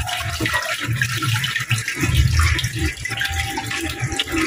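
Water running out of a PVC pipe outlet and splashing steadily into a tank of water, as the flow passes through a pipe section packed with a homemade filter.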